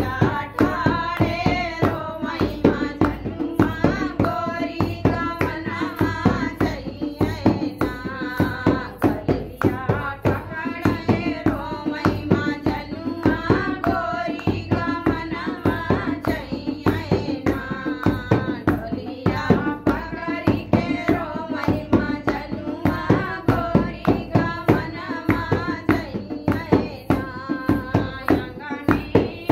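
Women's voices singing a dehati folk song (lok geet) together, over a steady rhythmic beat of hand percussion.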